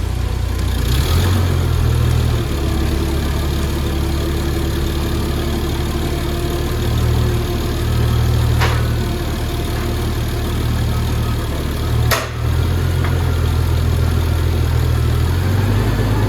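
Forklift engine running steadily, with two sharp knocks about 9 and 12 seconds in.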